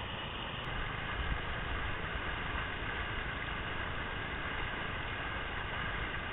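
Whitewater rushing steadily through a river wave and its breaking foam.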